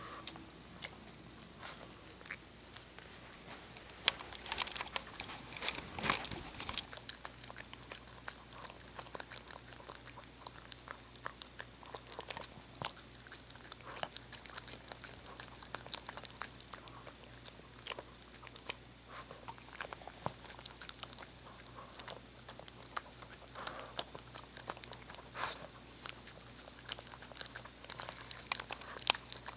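Shih Tzu eating, with irregular crunching and chewing of its food throughout. One sharper knock comes about four seconds in.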